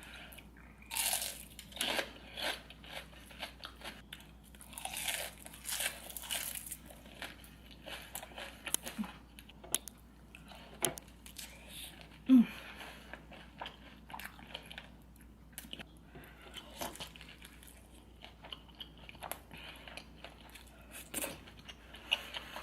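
A person eating: crunchy bites and chewing with irregular wet mouth clicks, the crunch typical of fried seafood. A single louder, short sound comes about halfway through.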